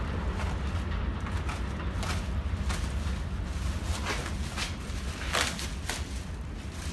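Kawasaki R188 subway train pulling away on elevated track, leaving a steady low rumble and a string of sharp wheel clacks, roughly one every half second to second, as it recedes.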